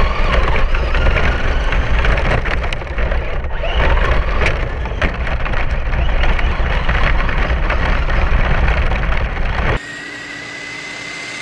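Traxxas RC truck driving fast over a dirt track, heard from a camera mounted on the truck itself: heavy rumble and wind buffeting with constant rattling and clattering of the chassis over bumps and debris. About ten seconds in it cuts abruptly to a much quieter steady background with a thin high whine.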